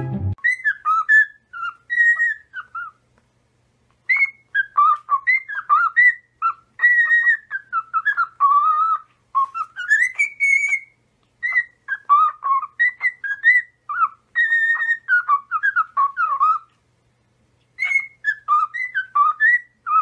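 Cockatiel whistling a tune: phrases of clear, gliding whistled notes, with two short pauses.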